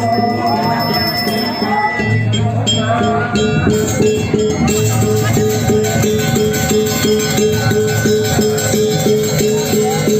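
Ceremonial music: pitch-sliding singing at first, then from about three seconds in a steady beat repeating about three to four times a second.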